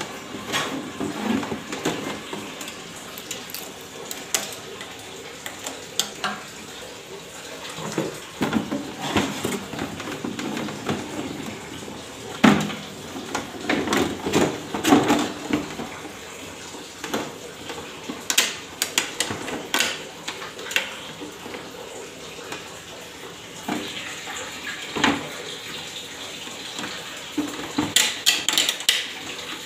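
Motorcycle plastic tank shroud panels being handled and fitted by hand: irregular clicks, knocks and rattles of plastic against the bike.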